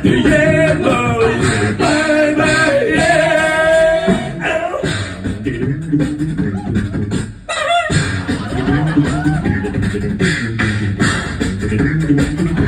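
A cappella group singing in close harmony over a beatboxed drum beat, with a short break about seven and a half seconds in.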